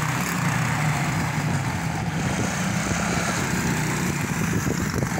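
Small youth quad bike's engine running steadily with an even low hum.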